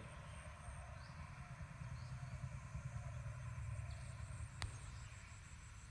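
Low, steady motor hum that swells in the middle and eases off, with one sharp click about four and a half seconds in.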